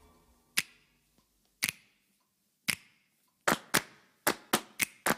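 Sharp percussive hits in a break in the music, with silence between them: three single hits about a second apart, then quicker hits in pairs from about three and a half seconds in.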